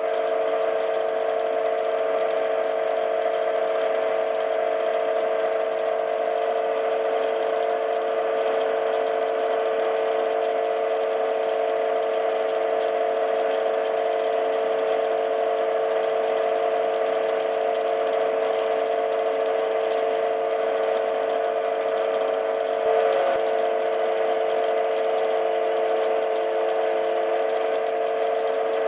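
TV16 lathe running steadily as a twist drill in the tailstock chuck bores into a spinning duralumin blank: an even machine hum with several held tones. There is one brief louder moment a little over two-thirds through.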